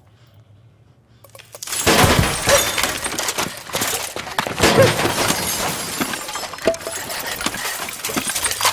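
Quiet at first, then about two seconds in a sudden loud crash gives way to a long run of clattering and breaking, like glass and objects smashing, with a few short squeaks among the impacts.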